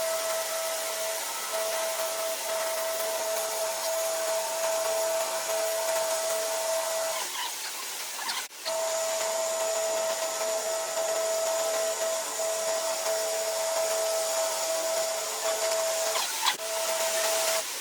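Woodturning lathe running with a steady whine over a hiss. It cuts out for an instant about eight and a half seconds in and again briefly near the end.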